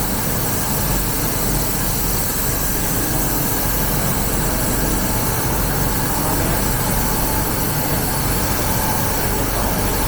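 3000 W fiber laser cutting machine running while cutting thick steel plate: a steady rushing noise with a constant low hum underneath, unchanging throughout.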